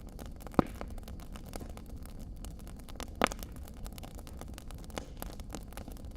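Wood fire crackling in a stone fireplace: a steady low rumble with a constant patter of small clicks, and two loud pops, about half a second in and about three seconds in.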